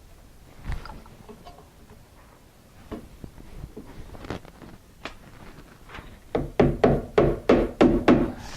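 Hammer nailing felt paper to the wall around a window opening with roofing nails: faint rustling and a few light knocks, then a quick run of about eight loud hammer blows in two seconds near the end.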